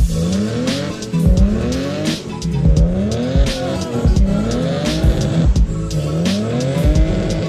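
Hip-hop style beat with deep bass notes, regular kick and hi-hat hits, and sliding synth notes that rise again and again.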